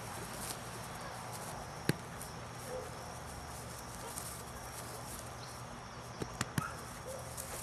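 Quiet outdoor background with steady insect chirring. A single sharp click sounds about two seconds in, and a few more come near the end.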